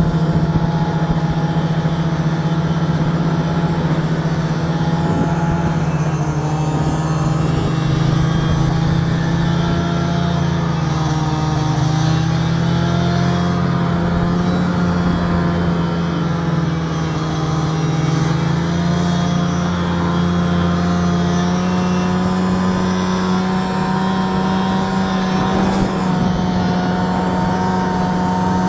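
Polaris Widetrak snowmobile's 500 cc two-stroke engine running steadily under way, its pitch dipping a little twice midway and rising slightly toward the end as the speed changes.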